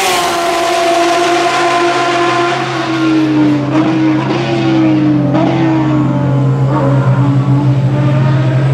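Porsche 911 RSR race car's 4.0-litre naturally aspirated flat-six passing at speed. Its engine note drops in pitch as it goes by, then keeps sounding loudly as the car pulls away, with a few brief breaks in the note a few seconds in.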